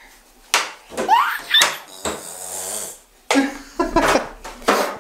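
A toddler's wordless vocal sounds: sudden squeals and babbling calls, one rising in pitch about a second in, with laughter.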